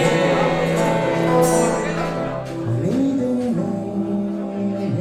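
Background music with a male singing voice and held instrumental notes.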